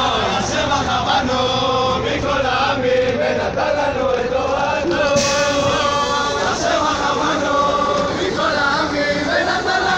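A crowd of mostly male voices singing together in unison: a repetitive, chant-like song with no break. There is a brief hiss about halfway through.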